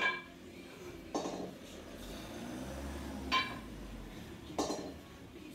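Two 8 kg kettlebells knocking together with short metallic clinks that ring briefly, four times, as they are swung and snatched overhead.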